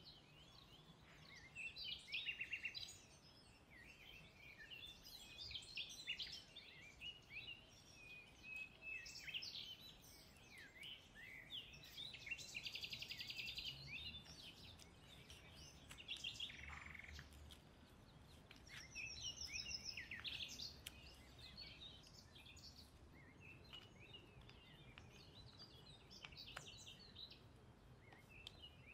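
Faint birdsong: small birds chirping and calling throughout, with a fast trill about twelve seconds in and a higher one about nineteen seconds in.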